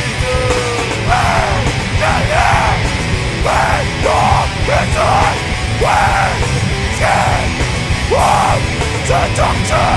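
Hard rock band playing, the singer yelling short phrases about once a second over a loud, dense backing.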